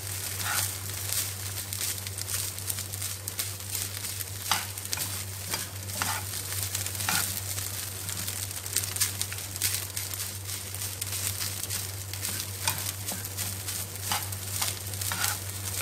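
Fried rice stir-frying in a pan with a light sizzle, while a spatula turns and tosses it, making frequent scrapes and taps against the pan.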